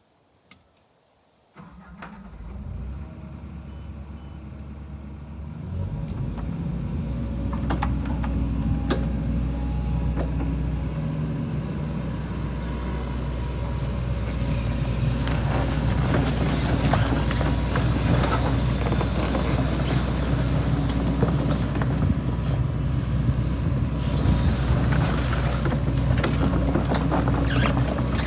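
Diesel engine of a New Holland E135BSR-2 excavator starting up about a second and a half in and running steadily, its level stepping up a few seconds later. In the second half, knocks and clanks sound over the engine as the machine works.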